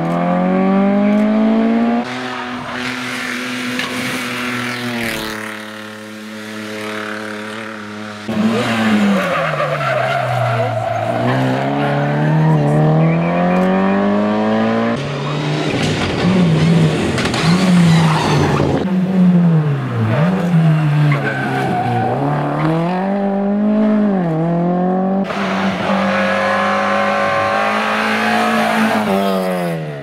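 Rally cars racing past one after another on a tarmac stage. The engines rev high and drop at each gear change, and the sound switches abruptly from one car to the next several times. Among them is a Mitsubishi Lancer Evolution.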